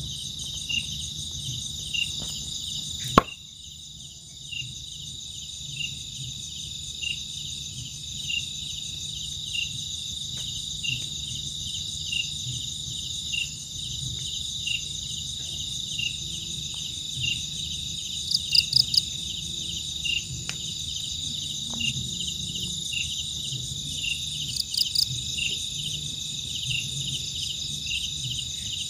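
Chorus of crickets and other insects: a steady high trill with a regular chirp a little more than once a second, and short runs of faster pulsing calls now and then. A single sharp knock sounds about three seconds in.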